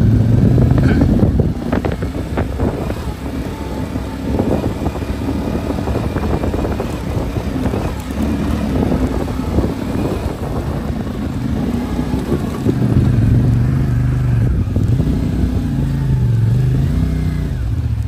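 CFMOTO 450MT parallel-twin engine revving hard under load as the bike climbs a steep dirt slope with two riders aboard and traction control switched off. The revs rise and fall repeatedly in the last few seconds.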